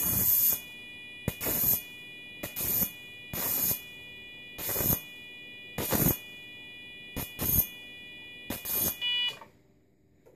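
Electrosurgical generator (Elektrotom 400) arcing to a screwdriver in cutting mode: about eight short hissing arcs, roughly a second apart, over the unit's steady high activation tone. Both stop about nine seconds in.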